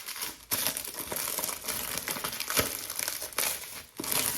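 Packaging crinkling and crackling as a perfume box is unwrapped by hand, almost without pause, with a sharp click about two and a half seconds in.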